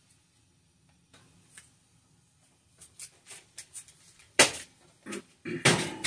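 A metal baking sheet going into an oven: a few light knocks and clicks, then a sharp metallic clank about four and a half seconds in, and more clatter near the end.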